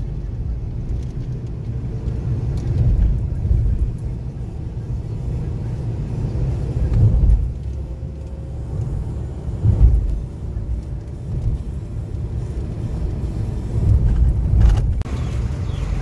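Road and engine noise heard inside a moving car: a low rumble that swells and eases every few seconds as the car drives through traffic.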